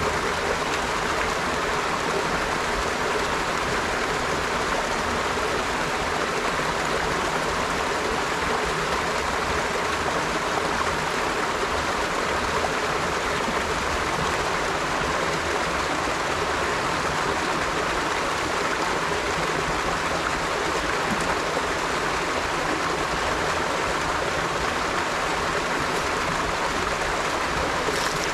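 River water flowing in a steady, unbroken rush, with no changes or separate splashes.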